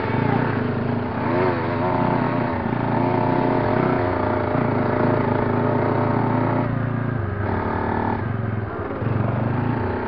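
Off-road motorcycle engines running through changing throttle on a dirt trail, the engine note rising and falling repeatedly, with a marked shift in pitch about seven seconds in.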